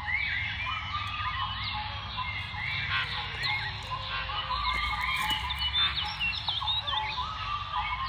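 Many small birds chirping and twittering at once: a busy chorus of short, quick, rising-and-falling chirps that never lets up, over a low rumble.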